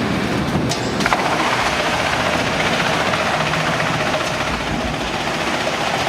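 Wood chipper running with a steady, loud, dense noise, with a couple of sharp knocks a little under a second in.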